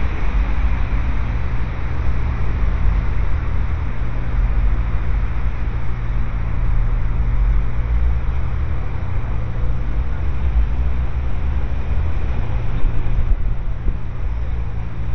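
Steady low rumble of road traffic and vehicle engines, with a constant low hum underneath.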